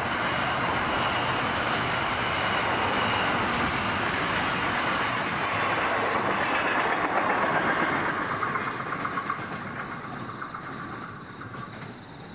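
Container wagons of a long intermodal freight train rolling past with steady wheel-on-rail noise. From about eight seconds in, the sound fades as the end of the train passes and draws away, leaving faint rhythmic clicking of wheels.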